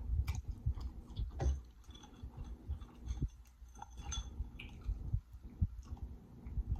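A person chewing food close to the microphone: irregular wet mouth sounds with a few light clicks.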